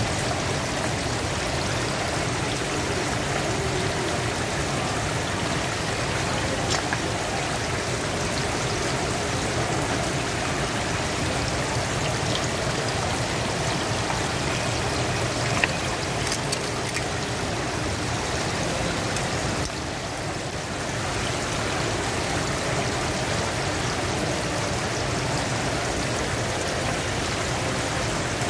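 Water from a row of spray pipes streaming and splashing steadily into a live seafood display tank, with one brief click about halfway through.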